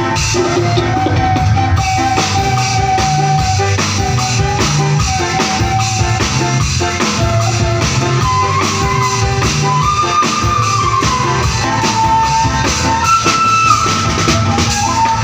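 Music with a drum kit and bass keeping a steady beat under a melodic lead line.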